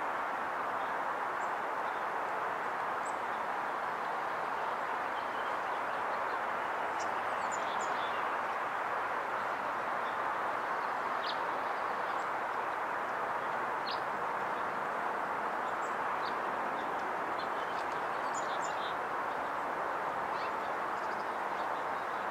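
Steady rushing outdoor background noise, with scattered short, high chirps of black-capped chickadees at a seed feeder, a few in quick clusters.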